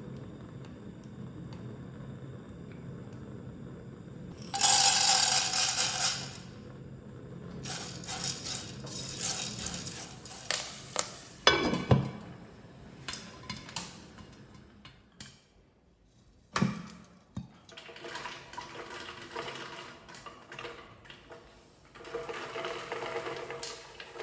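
Kitchen handling sounds: a loud rattling pour about five seconds in, then scattered clinks and knocks of cookware and utensils, with another stretch of rattling near the end.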